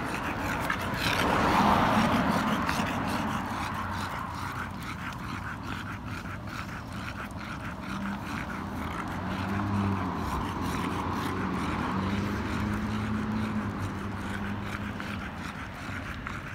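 Street traffic: a car passes, loudest about two seconds in, then a low engine hum that comes and goes.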